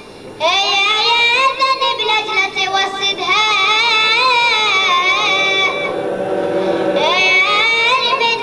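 A child's high voice singing a Shia lament (latmiya) in long, wavering, ornamented held notes. The singing breaks off briefly at the start and thins for about a second near the end before rising again.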